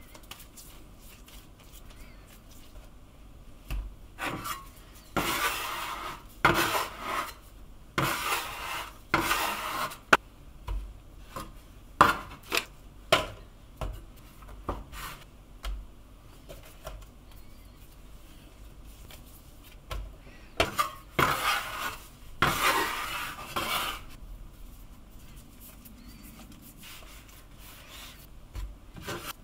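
Scraping and rubbing strokes on a wooden cutting board as pizza dough is cut and shaped into balls, in two spells of short strokes with small knocks between.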